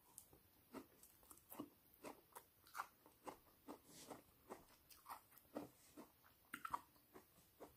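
Faint chewing of a mouthful of crunchy sprouts, soft wet clicks about two to three a second.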